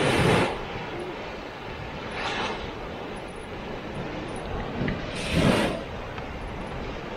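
Boiling thermal pool churning and hissing steadily, swelling into a louder surge three times: near the start, after about two seconds and after about five seconds.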